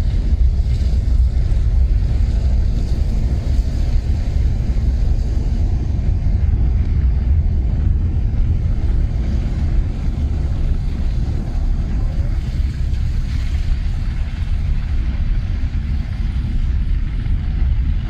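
Wind buffeting the microphone in a steady low rumble, mixed with the running noise of a vehicle driving along a wet road.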